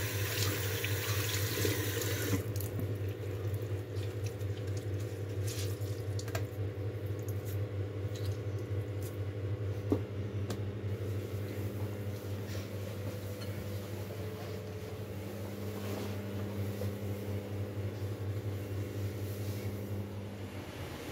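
Tap water running into a sink while a cloth is rinsed and wrung. The water stops about two seconds in, and the cloth is then wiped around the basin with small scattered knocks, over a steady low hum.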